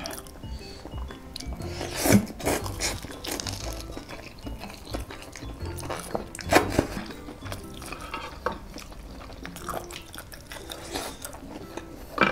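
Eating sounds: forks clinking and scraping in a glass dish of instant ramyun noodles, with a few sharp clinks, and noodles being slurped. Faint background music underneath.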